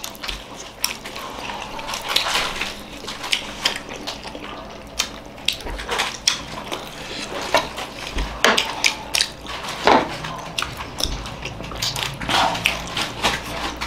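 Wet mouth sounds of several people eating sauce-dipped momo dumplings: chewing, slurping and lip-smacking, in many short quick clicks.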